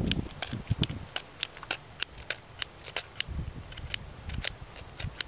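Sharp clicks, about four a second, from a small handheld gadget being pressed over and over, with a low rumble on the microphone in the first second.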